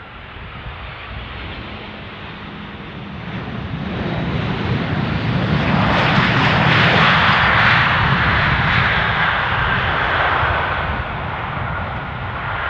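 Jet aircraft passing close by, its engine noise swelling to a peak about seven seconds in and then fading, with a high engine whine that slowly falls in pitch.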